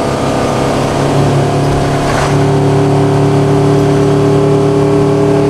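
Ford V10 gas engine of a Class A motorhome working hard up a mountain grade, heard from inside the cab as a steady drone. About two seconds in it grows louder and fuller as the coach picks its speed back up after a curve, still without a downshift.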